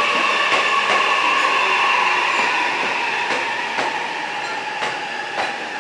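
JR East E657 series electric train slowing along the platform, its whining tones falling slowly in pitch as it brakes, with scattered clicks of the wheels over rail joints.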